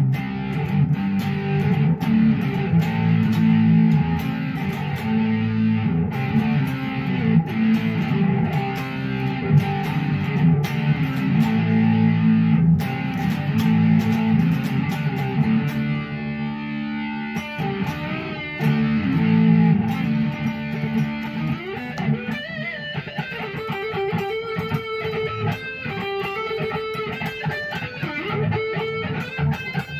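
Electric guitar played along with recorded music that has a steady beat. About halfway through, the guitar moves to a lead line with bent notes.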